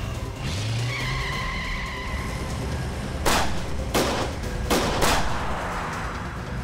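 Car engine and tyre noise with a brief tyre squeal about a second in, then four pistol shots in quick succession about three to five seconds in.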